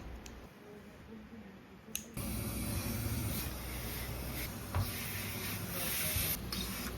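Garment-factory work noise: quiet at first, then a click about two seconds in and steady machine-like noise with a low hum, with a single knock near the middle.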